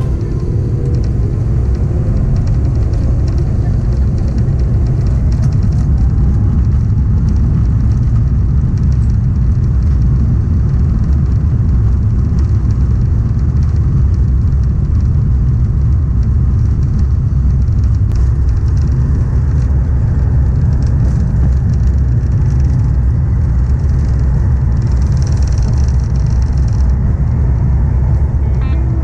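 Airbus A350-1000's Rolls-Royce Trent XWB engines at take-off thrust, heard from inside the cabin: a loud, steady low rumble through the take-off roll and on to lift-off.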